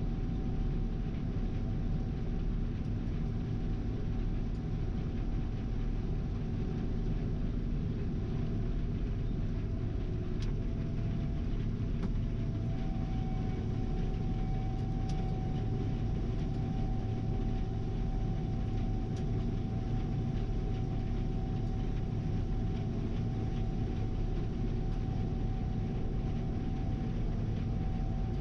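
Gleaner R72 class 7 combine running steadily while harvesting soybeans: an even engine and machinery drone with a steady whine.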